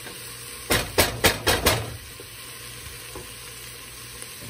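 Diced chicken and vegetables sizzling as they sauté in a stainless steel stockpot, stirred with a spoon. About a second in, the spoon knocks against the pot about five times in quick succession.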